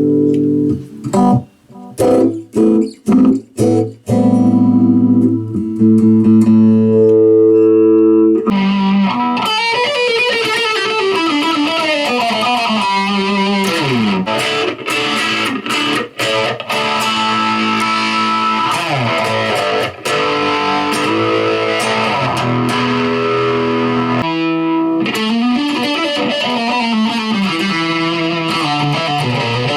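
Electric guitar played through distortion. It opens with held chords and a few short stabbed chords, then from about eight seconds in plays a lead line with fast descending runs.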